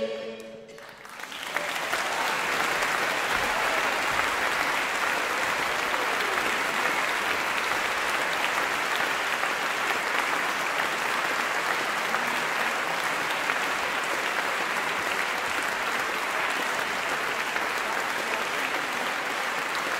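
Audience applauding. The last choir-and-orchestra chord dies away at the start, and the clapping breaks out about a second in, then carries on steadily.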